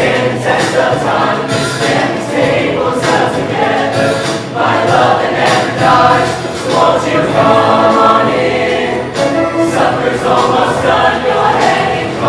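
Show choir of men and women singing together in full voice, with instrumental accompaniment.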